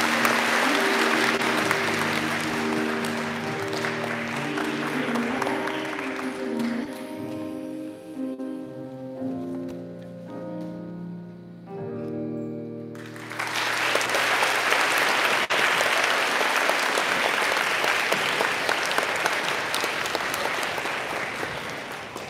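Audience applause over orchestral music; the applause dies away about seven seconds in, the music goes on alone and closes on held chords, and a second, louder round of applause starts about thirteen seconds in and fades near the end.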